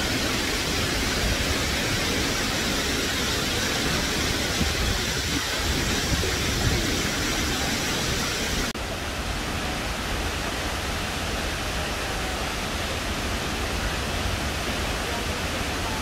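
Steady rush of the Misol-Ha waterfall, a dense even noise of falling water. About nine seconds in, the sound changes abruptly and loses some of its high hiss.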